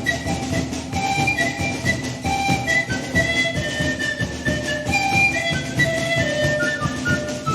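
Ensemble of sikus (Andean panpipes, zampoñas) playing a sikuri melody in held, breathy notes that step from pitch to pitch, with low drum-like beats underneath.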